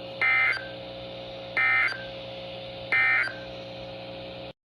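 NOAA Weather Radio EAS end-of-message signal: three short bursts of SAME data tones, the digital "NNNN" code, about a second and a half apart, marking the end of the warning. They sound over a steady radio hum, and the audio cuts off suddenly near the end.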